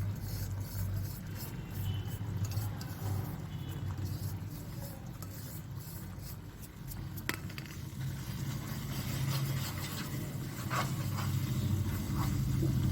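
Spoon scraping and stirring a thick, sticky ginger-and-jaggery mixture in a pan, in scattered short strokes with a sharp click about seven seconds in, over a steady low hum.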